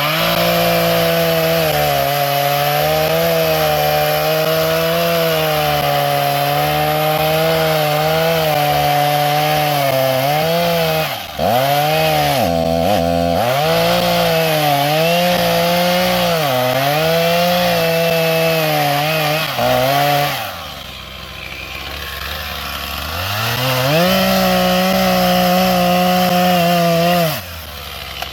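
Two-stroke chainsaw running at high revs while cutting into a pine trunk for the felling notch, its pitch sagging and recovering again and again as the chain bites into the wood. It drops back about two-thirds of the way through, revs up again, and drops near the end.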